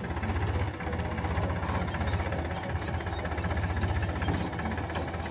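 Powertrac Euro 50 tractor's diesel engine running steadily under load while it drives a rotavator tilling dry soil, with a brief dip in level about a second in.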